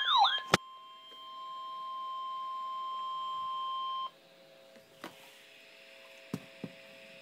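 Several overlapping wailing electronic sirens cut off with a sharp click about half a second in. They give way to the steady, high single-pitch warning tone of a NOAA weather radio alert, which swells up and stops abruptly about four seconds in. A faint steady hum with a few soft clicks follows.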